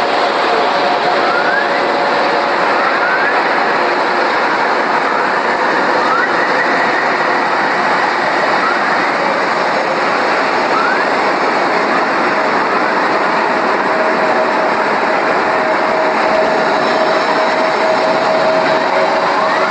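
Earth's radio emissions from space converted to sound: a steady hiss with short rising chirps every second or so.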